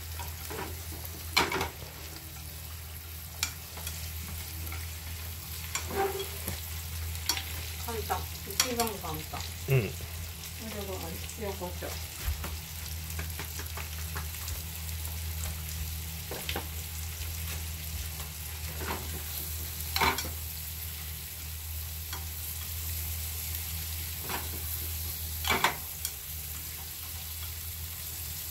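Snap peas sizzling in butter in a frying pan as they are stir-fried, with the chopsticks clicking sharply against the pan now and then.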